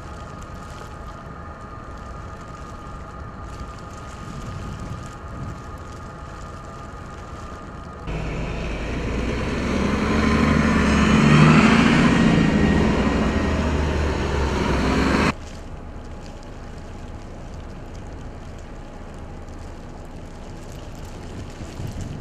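A steady, low background hum of the snowy street, then a city transit bus driving past on the snow-covered road about eight seconds in. Its engine and tyres grow louder to a peak, and the sound cuts off suddenly after about seven seconds, when the quieter steady hum returns.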